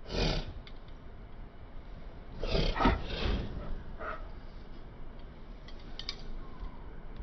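Rhesus macaque giving short, harsh, breathy calls: one right at the start and a longer, louder run about two and a half seconds in, with a few weaker ones after.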